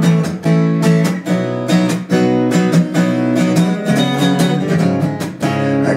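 Acoustic guitar strummed in a steady rhythm, its chords ringing between the strokes.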